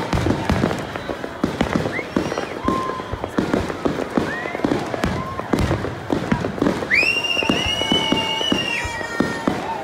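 Fireworks display: a dense run of bangs and crackling bursts, with short rising whistles now and then and one long whistle that rises and holds for about two seconds near the end.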